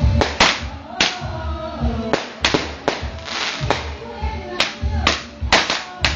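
A dozen or so sharp firework cracks going off at irregular intervals, some close together, over music.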